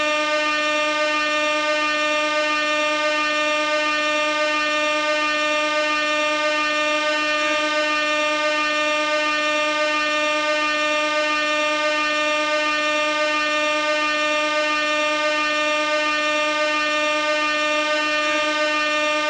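Gas air horn sounding one continuous, unbroken blast, a loud, steady single-pitched tone.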